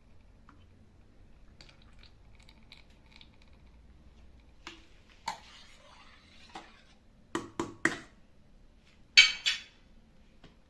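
Kitchenware being handled: scattered light knocks and clinks, a quick run of three knocks, then a louder short clatter about nine seconds in.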